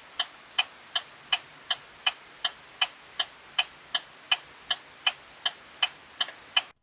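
Car turn signal indicator clicking inside the vehicle: sharp, evenly spaced ticks at about three a second over a faint hiss, stopping abruptly near the end.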